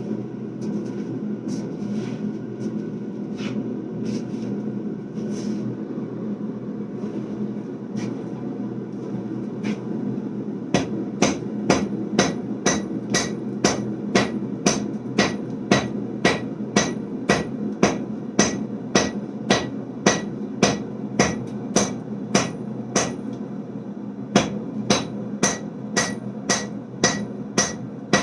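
Hand hammer striking a hot layered steel billet of 1095 and 15N20 on an anvil, forge welding the layers together. After about ten seconds of a steady low rumble with a few light taps, the blows come fast and even, nearly two a second, each with a short metallic ring.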